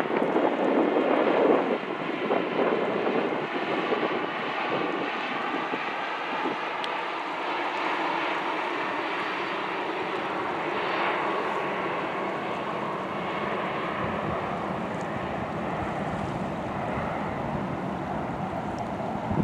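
Jet noise from a Boeing 737-800's CFM56-7B turbofan engines on final approach, gear down, a steady rush that holds as the airliner flies past.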